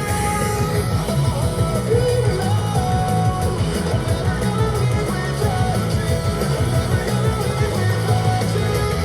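A pop-rock song with singing, guitar and heavy bass, played on a Zealot S67 portable Bluetooth speaker as a sound test.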